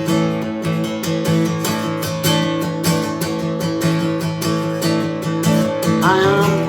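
Guitar chords strummed in a steady driving rock rhythm, an instrumental break between sung lines. A voice starts singing near the end.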